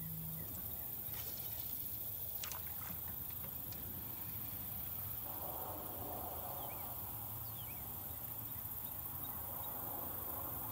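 Steady wind and water noise around a small fishing boat. From about five seconds in, a spinning reel is cranked to retrieve the lure.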